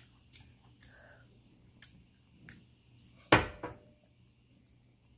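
Sounds of eating fried chicken wings at a table: a few small wet clicks and smacks, then one loud knock about three seconds in, followed by a brief faint ring.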